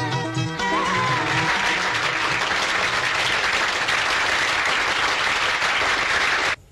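The final held sung note of a song with band backing fades out within the first second and a half, as an audience breaks into steady applause. The clapping cuts off abruptly near the end.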